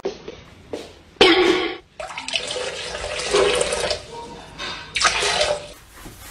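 Water splashing and sloshing in a toilet bowl as a husky stands with a hind leg in it.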